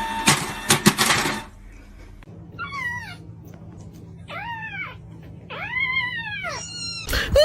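A domestic cat meowing four times, each meow rising and then falling in pitch. The meows start a few seconds in and come after a loud burst of noise lasting about a second at the start.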